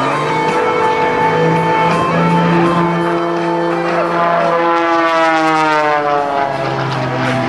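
Music with long sustained chords playing over the airshow's public-address loudspeakers. From about halfway through, a propeller aerobatic plane's engine is heard passing, its pitch falling.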